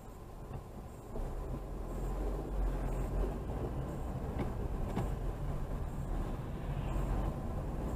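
Road and engine noise of a moving car heard from inside the cabin through a dashcam, a low rumble that grows louder about a second in as the car picks up speed.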